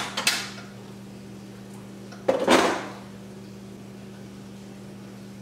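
Electric pressure cooker's lid being unlatched with a click and lifted off, with a louder clatter of lid and metal a little over two seconds in. A faint steady hum runs underneath.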